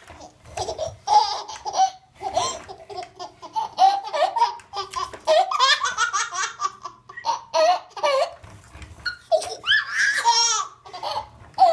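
A baby laughing and giggling in repeated bursts, with a long run of quick laughs about halfway through.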